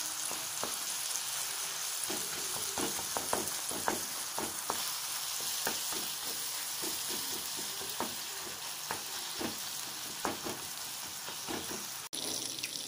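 Chopped onion, tomato and garlic sizzling in hot oil in a clay pot as they are sautéed, with frequent clicks and scrapes of the spatula stirring against the pot. The sound drops out for an instant near the end.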